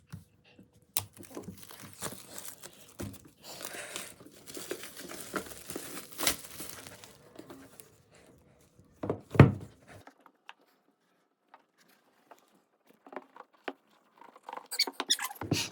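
Packaging being handled and opened: crinkling and tearing with scattered clicks, a loud thump about nine seconds in, then a few seconds of quiet before more rustling near the end.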